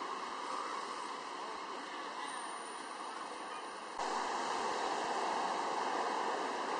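Steady outdoor background noise, an even hiss with no distinct events, which jumps louder at a cut about four seconds in.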